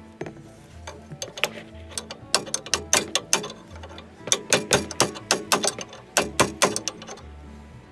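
Runs of sharp metallic clicks from hand tools, several a second, over background music with a repeating low bass note.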